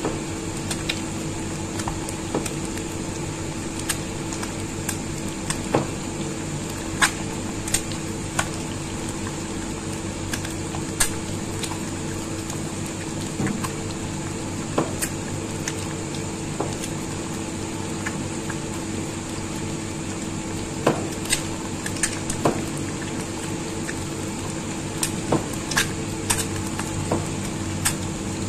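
Eggs frying in hot oil in a nonstick pan, sizzling steadily with scattered sharp pops and taps, over a steady hum.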